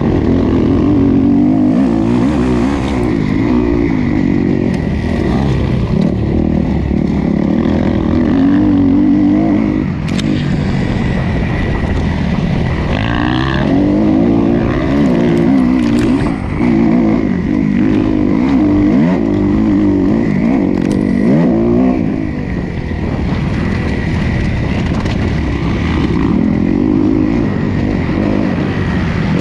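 Motocross bike's engine heard from the rider's own onboard camera, revving up and down continuously as it is ridden hard over a dirt track, with rising revs after each brief easing off of the throttle.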